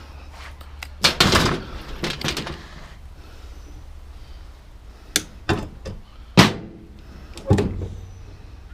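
A series of separate knocks and clunks as scrap is handled on a loaded truck, with the loudest clunk about six and a half seconds in, over a steady low hum.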